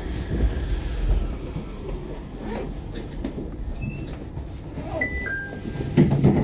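Running noise of a Nippori-Toneri Liner car, a rubber-tyred automated guideway train, heard from inside: a steady low rumble, with a few brief high squeaks about five seconds in and a knock near the end.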